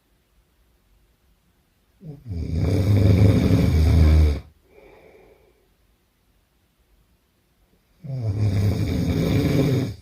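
A person snoring hard: two long, loud snores about six seconds apart, each lasting a couple of seconds, the first followed by a softer breath out.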